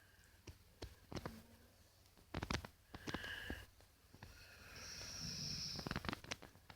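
Dog snoring faintly in its sleep: a short snoring breath about three seconds in and a longer one from about four seconds until near the end. A few sharp clicks come before them, the loudest about two and a half seconds in.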